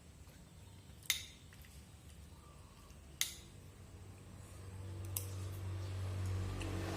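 Two sharp clicks about two seconds apart and a fainter one later, with a low hum that grows steadily louder over the second half.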